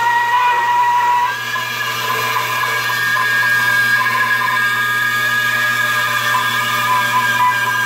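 Band saw with a 4 TPI ripping blade running and ripping a thin laminate strip off a wooden board. It gives a steady whine over a low hum, and the whine steps up in pitch about a second and a half in.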